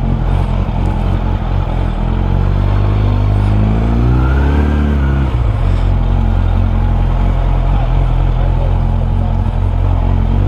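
Suzuki Bandit 600's inline-four motorcycle engine under way, its note rising in pitch for a couple of seconds, dropping suddenly about five seconds in, then running steady.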